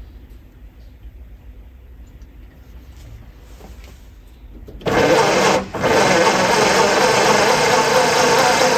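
Electric starter motor cranking the Austin-Healey Sprite's BMC A-series four-cylinder engine with its cylinder head off, so it spins freely with no compression. It starts suddenly about five seconds in, dips briefly a moment later, then runs on steadily.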